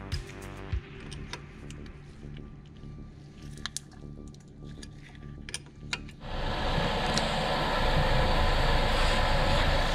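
Light metallic clicks and clinks of a spanner working a brake caliper bleed nipple, then about six seconds in, a sudden switch to the car's engine running steadily at idle.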